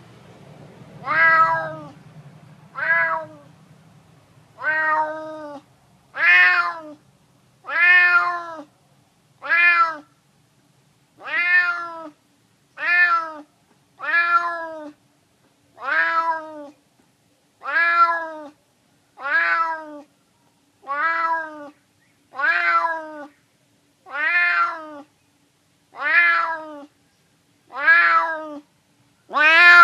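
Domestic cat meowing loudly over and over, a short meow every one and a half to two seconds, each rising then falling in pitch: a hungry stray begging for food.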